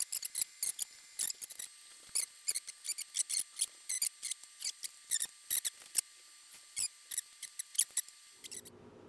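Small metallic clicks and ticks, a few a second at uneven spacing, from a hex key working the bolts of a mountain-bike stem and its handlebar clamp. Near the end the clicking stops and a low steady hum takes over.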